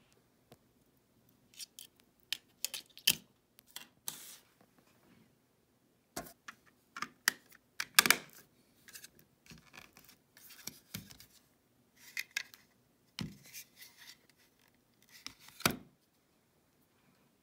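Red-and-white plastic Raspberry Pi case being handled and snapped together around the board: a scattering of sharp plastic clicks and short scrapes, the loudest snap about eight seconds in as the lid is pressed down.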